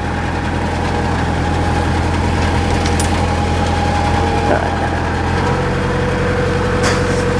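Narrowboat's diesel engine running at a steady low cruising speed, a continuous low drone with a steady hum over it.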